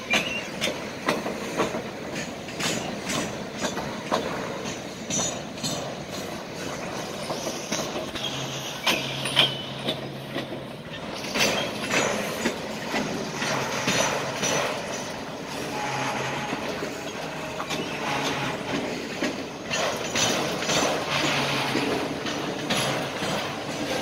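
Freight train of enclosed autorack cars rolling past at slow speed, wheels clicking irregularly over rail joints. A couple of brief high wheel squeals are heard.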